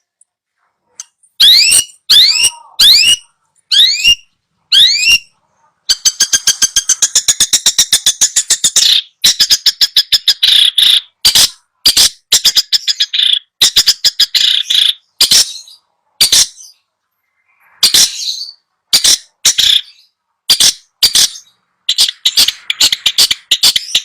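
Long-tailed shrike (cendet) song. It opens with a series of quick, rising whistled notes, then breaks into a fast, harsh rattling chatter lasting about three seconds, and goes on with repeated short, harsh call notes in irregular bursts.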